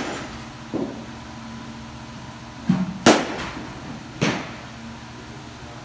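A bat striking a ball in hitting practice: a loud, sharp crack about three seconds in, just after a low thump. Another sharp knock comes about a second later, and a fainter one just under a second in.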